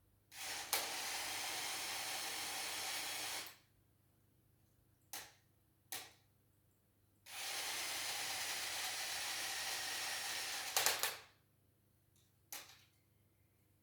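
A Lego Technic crane's gear mechanism whirring steadily in two runs of about three and four seconds, with short clicks between and after them.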